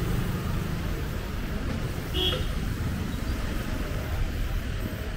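Busy street traffic: a steady low rumble of passing vehicles, with a short horn beep about two seconds in.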